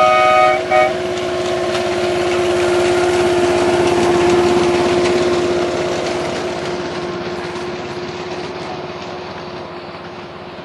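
Miniature railway locomotive sounding its horn twice right at the start, a toot about half a second long then a short one, then running past pulling its passenger carriages. Its engine drone grows louder to a peak about four seconds in and fades away, with the wheels clicking over the rail joints.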